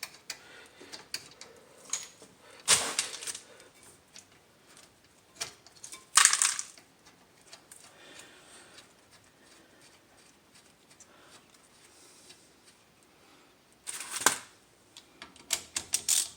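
Hand ratchet on the brake caliper bolts: short runs of ratchet clicking and clinks of metal tools, with quiet gaps between and a quick run of clicks near the end.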